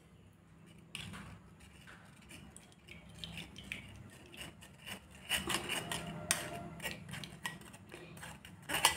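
A metal spoon scraping and pressing wet palm fruit pulp through a steel mesh strainer over a glass bowl, making soft scrapes and light clinks. It starts with a single click, then the scraping grows busier through the second half.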